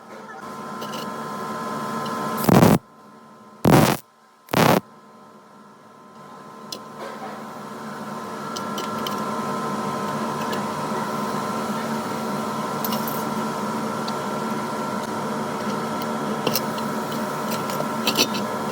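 Electric grinder motor running with a steady whine and hum. It builds up twice, with three short loud bursts in the first few seconds, then settles to a steady run.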